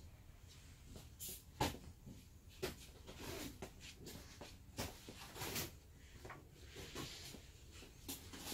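Faint, irregular clicks, knocks and rustles over a low hum: handling noise from a handheld camera being carried, with the odd footstep. The loudest knock is about a second and a half in.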